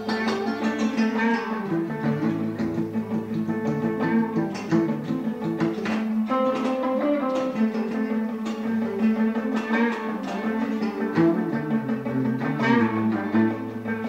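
Electric and acoustic guitars played together in a rock-and-roll practice jam: steadily picked and strummed notes over a moving low line.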